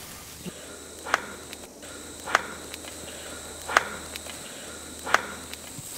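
Punches landing in a fist fight: four sharp, short hits about one and a half seconds apart. Under them runs a steady high insect drone.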